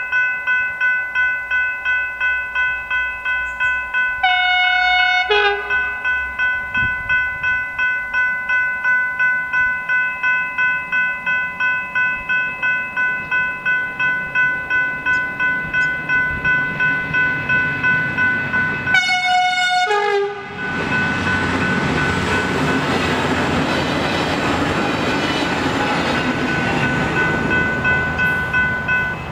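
Level crossing's General Signals electronic bells ringing just under twice a second. A train horn sounds two short blasts, about four and nineteen seconds in. From about twenty seconds in, a train rushes through the crossing at speed while the bells keep ringing.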